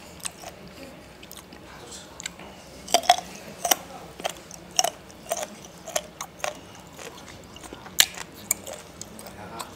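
Close-up mouth sounds of a person chewing fermented skate sashimi: irregular wet clicks and smacks about every half second, with one louder click near the end.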